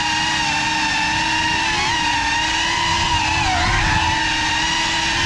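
Small FPV drone's motors and propellers whining at a steady pitch, with small dips in pitch as the throttle shifts.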